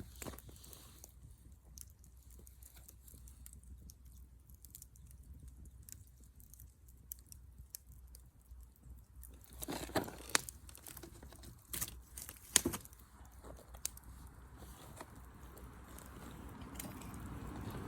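Scattered small crunches and sharp clicks, the loudest about ten and twelve and a half seconds in, over a faint background hiss that grows louder near the end.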